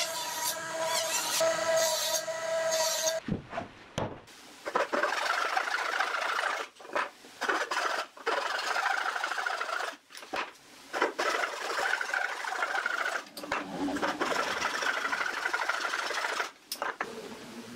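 Wood being worked by hand with an abrasive tool: a run of rasping strokes with short pauses between them. About three seconds in it takes over from a steady humming tone.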